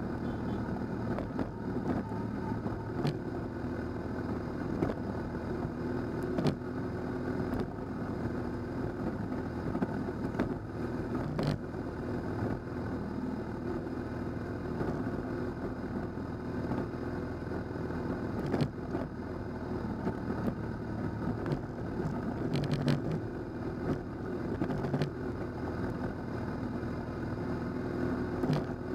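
Motorcycle engine running at steady revs while riding a rough gravel track, with a few sharp knocks from bumps in the road.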